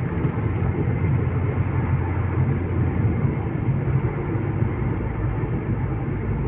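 Steady low rumble and road noise of a moving vehicle.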